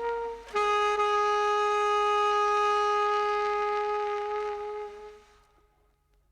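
Solo saxophone playing slow, long held notes: a note breaks off about half a second in, then a lower note is held for about four seconds and fades away, leaving near silence near the end.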